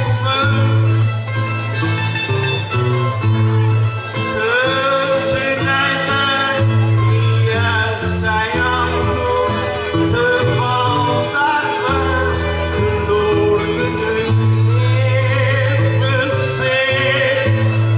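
Traditional Portuguese cantoria ao desafio: a man singing a verse, accompanied by an acoustic guitar and other plucked string instruments playing a steady, repeating accompaniment.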